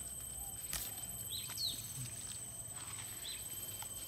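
A bird calling: two quick arched chirps about a second and a half in and a fainter one near the end, over a steady thin high-pitched tone, with a single sharp tap just under a second in.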